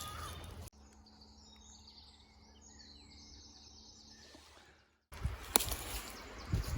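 Small birds chirping and twittering in woodland, many short high calls, heard plainly in a quieter stretch. The quiet stretch is framed by noisier stretches, each with sharp crackles and knocks, which end abruptly about a second in and resume near the end.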